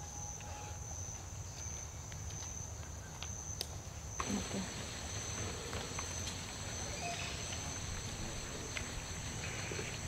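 Rainforest insects keep up a steady, high-pitched trill. About four seconds in the background turns fuller and louder, with scattered clicks and rustles.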